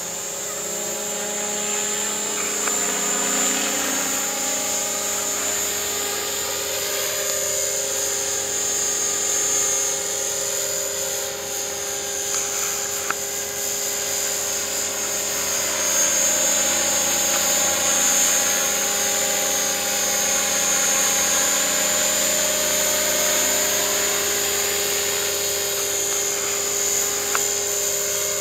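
Align 500 radio-controlled helicopter flying aerobatics: a steady high whine from its motor and rotor blades, rising and falling in pitch several times as it swoops and passes.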